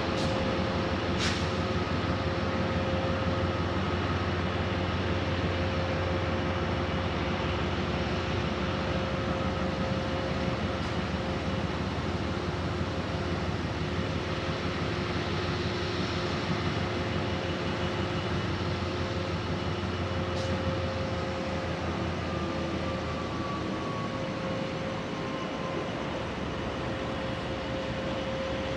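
Diesel-electric freight locomotive running steadily as it hauls a train of tank wagons: a constant engine drone with a steady hum and a low rumble that eases about three-quarters of the way through.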